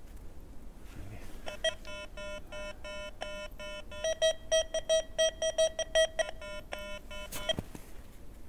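Metal detector giving a run of short pitched target beeps as its coil is swept back and forth over a silver coin buried among iron screws and a nail, with low and higher tones mixed. The beeps are fastest and loudest in the middle, about three to four a second.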